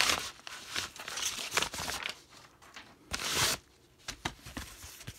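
Paper and cardboard mailing packaging, a padded kraft mailer and a USPS Priority Mail flat rate box, being torn open and handled: irregular rustling and crinkling with bursts of tearing, the loudest about three seconds in.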